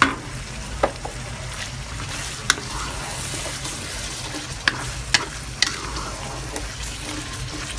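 Sambal (chili paste) frying in oil in a pan with a steady sizzle, stirred with a wooden spoon that knocks and scrapes against the pan a handful of times.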